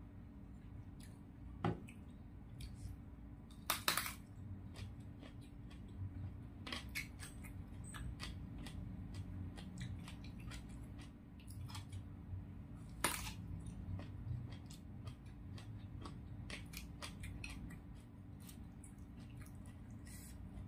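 Close-miked eating sounds: crisp bites into raw vegetables and wet chewing, with sharp clicks and snaps, the loudest about four seconds in. A faint steady hum runs underneath.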